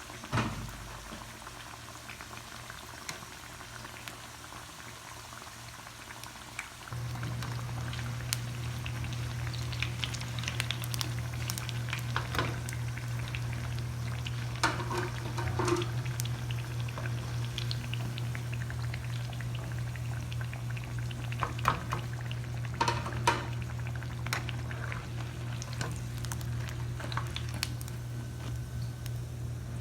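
Bread pakoras deep-frying in hot oil: a steady sizzle with scattered crackles and pops. A steady low hum starts about seven seconds in.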